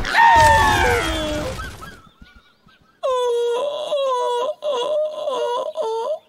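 A cartoon bear's voice: a long cry sliding down in pitch over the first two seconds, then, after a short pause, a run of about five pained wailing moans.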